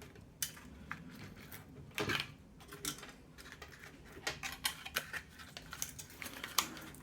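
Irregular light clicks and taps of plastic parts being handled as a CPU cooler's fans and fan clips are taken apart.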